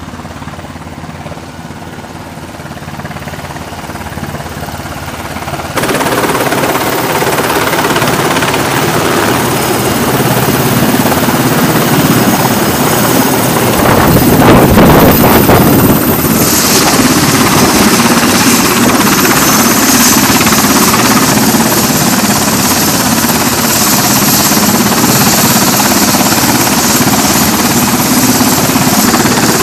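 MH-60S Sea Hawk helicopter coming in to land: the rotor and twin turbine engines grow louder as it approaches, are loudest about halfway through as it hovers and sets down, then run steadily on deck with a high turbine whine.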